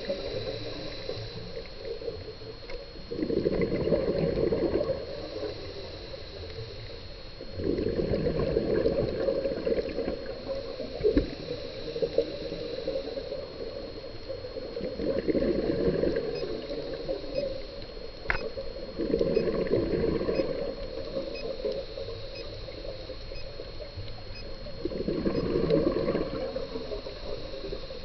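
Scuba diver breathing through a regulator underwater: five long bubbling exhales about every five seconds, with a fainter hiss of the inhale between them. A thin steady high whine runs underneath.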